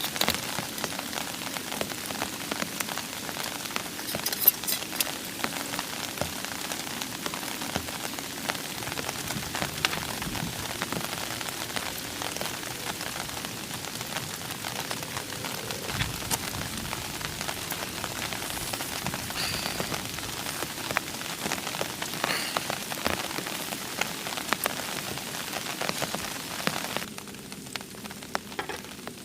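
Steady rain falling, with many separate drops striking close by. About two seconds before the end it becomes quieter.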